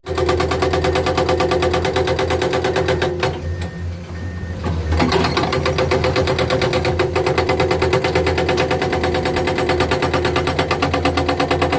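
Komatsu excavator's diesel engine working under load with a fast, even clatter, alongside a steady hydraulic whine. The whine and the engine ease briefly about three to five seconds in, then pick up again.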